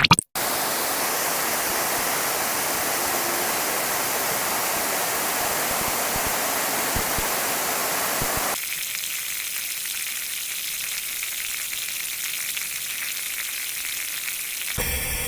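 Sound-effect clips played at ten times speed, heard as a steady hiss. About eight and a half seconds in it changes to a thinner, higher hiss, and it changes again near the end.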